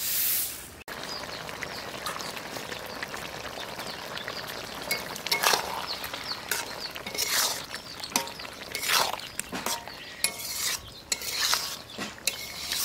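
A grass broom sweeping across a dirt floor briefly at the start, then a metal ladle stirring and scraping through radish and small-fish curry in a black wok, over a steady sizzle of the simmering curry.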